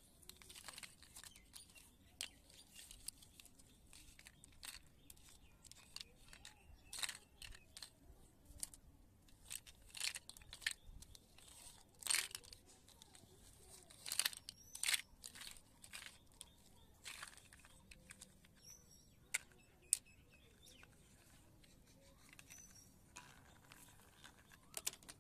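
Hard plastic toy building blocks and plastic toy trucks being handled: irregular light clacks and knocks as pieces are picked up, set down and dropped into a toy dump truck's bed, some clacks sharper than others.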